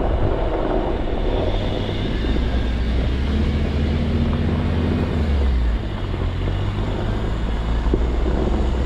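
Off-road vehicle's engine running at low trail speed, a steady low rumble; the engine note eases off about six seconds in.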